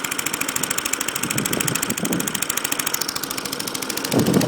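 A small four-stroke petrol engine on an Atco 17-inch self-propelled mower, running steadily with an even, fast firing rhythm.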